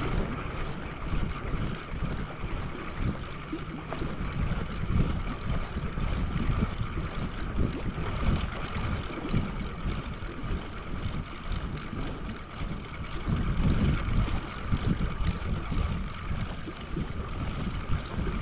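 Wind buffeting the microphone in irregular gusts, over a steady wash of small lake waves against a concrete shore.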